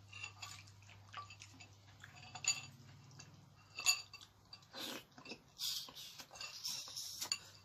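A person eating stewed beef foot by hand: sharp clicks of bone against the bowl, twice, then chewing and biting at the meat on the bone.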